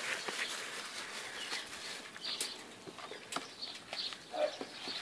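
Great Dane puppies, about five and a half weeks old, making short soft whimpers and squeaks as they mill about, with a few light taps in between.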